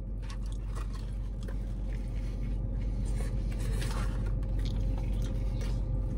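A man chewing fried food with small wet mouth clicks and smacks, over a steady low hum inside a car.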